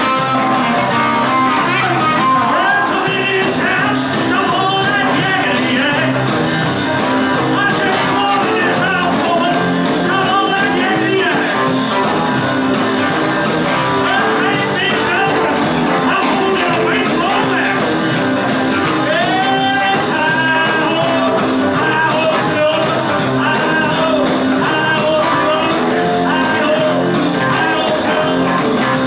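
Live rock and roll band playing: drum kit, guitars and keyboard, steady and loud, with a melody line that bends up and down in pitch.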